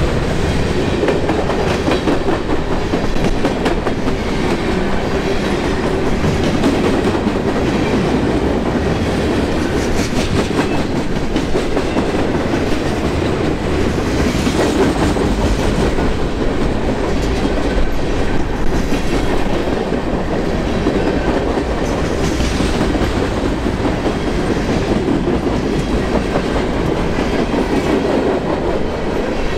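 Freight train cars rolling steadily past at close range: a continuous rumble and rattle of boxcars and refrigerated boxcars, with steel wheels clicking over rail joints every few seconds.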